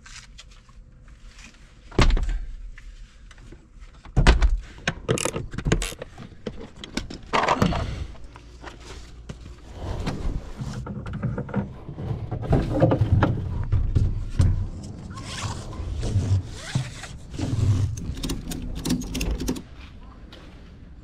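A run of irregular thuds, knocks and scrapes, with two loud thumps about two and four seconds in.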